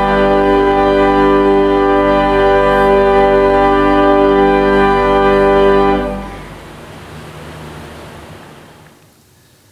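Church organ holding one sustained chord over a deep bass note. The chord is released about six seconds in, and only a faint hiss fading out remains.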